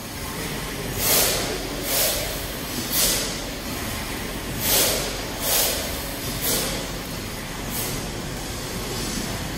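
Ellenroad's large horizontal steam mill engine running: a steady mechanical rumble with a hissing puff about once a second. The puffs are weaker near the end.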